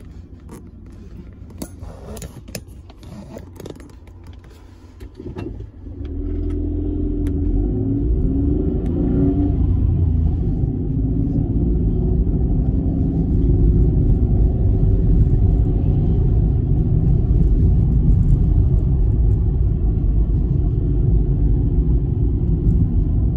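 Car engine and tyre rumble heard from inside the cabin: quiet with a few light clicks at first, then about six seconds in the car pulls away and the low rumble grows loud and stays steady.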